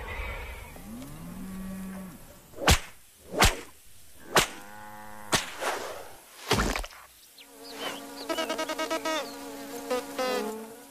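Cartoon insect sound effects: a run of quick whooshes as insects zip past, then a fly's pitched buzzing that pulses rapidly from about seven seconds in.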